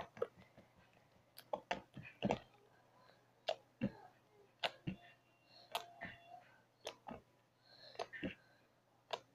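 Sticky slime being squeezed and pulled apart by hand, making scattered wet clicks and pops, about one or two a second at irregular intervals.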